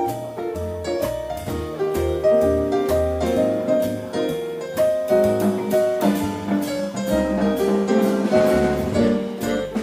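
Live jazz band playing an instrumental break, with piano to the fore over double bass and a steady beat of drum and cymbal strokes.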